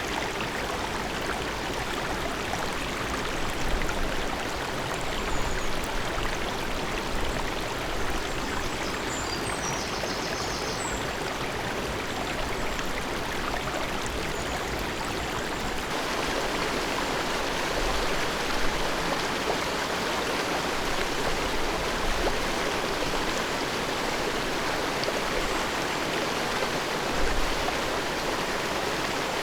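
Forest stream of water running steadily, a continuous even rush; its sound shifts slightly about halfway through.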